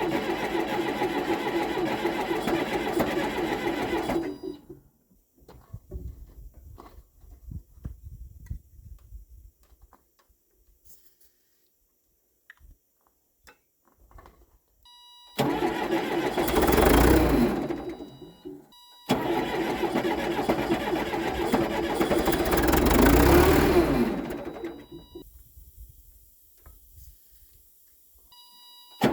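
Case 680G backhoe's diesel engine being started from cold. It runs steadily for about four seconds, then goes quiet with a few scattered clicks, then two loud cranking bursts follow, about three and six seconds long, before it settles.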